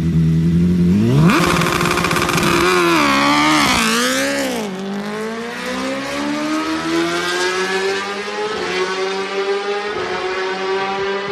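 Kawasaki ZX-10RR World Superbike race bike's inline-four engine is held at steady revs, then revs up sharply about a second in as it launches from a standstill. The pitch wavers for a couple of seconds as it pulls away, then rises slowly and steadily as the bike accelerates down the straight, growing a little quieter with distance.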